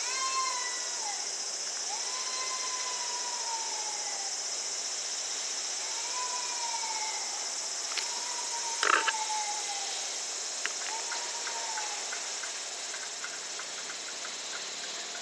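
Steady high-pitched insect drone, with an animal calling over it in drawn-out calls that rise and then fall, one about every two seconds. A sharp knock comes about nine seconds in, the loudest moment, followed by faint quick ticks.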